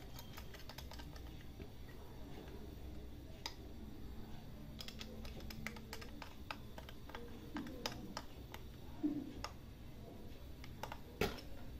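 Screwdriver tightening the clamp screw of an angle grinder's wheel guard: small scattered metallic clicks and ticks, with one louder click near the end.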